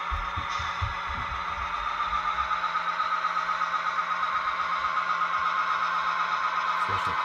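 Model railroad locomotive running along the layout's track: a steady whine with overtones and a rhythmic pulse that sets in about two seconds in, with a few soft low thumps early on and again near the end.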